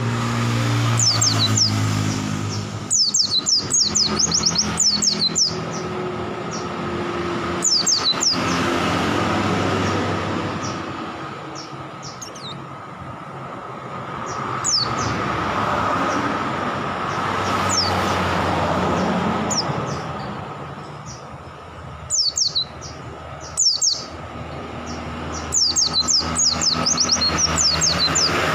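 White-eye (pleci) singing in bursts of rapid, very high twittering chirps, half a dozen bursts with pauses between, over a steady background rumble and hum.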